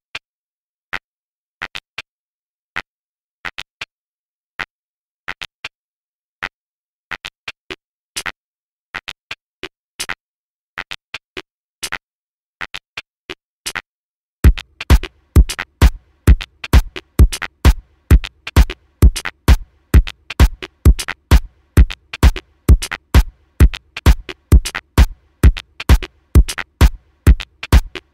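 Tech house track built on a drum machine: it opens with sparse, irregular percussion clicks, and about halfway in a steady kick drum enters at about two beats a second, with busier hi-hat ticks over it.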